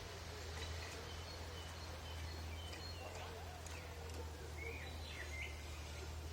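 Birds chirping outdoors: scattered short, high calls over a steady low hum and background noise.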